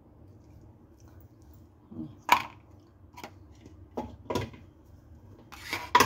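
Brief clinks and knocks of cutlery and a ceramic bowl, a few spaced a second or so apart, then coming faster near the end.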